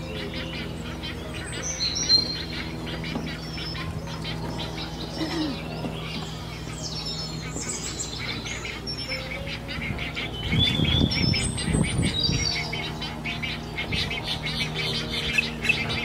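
Egrets calling at a nest: rapid high chirping and ticking chatter, with a louder, harsh low squawking burst about ten to twelve seconds in, over a steady low hum.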